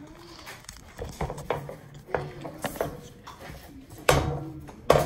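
Knocks, bumps and rubbing of a phone camera being handled and set in place, with a loud bump about four seconds in and another near the end.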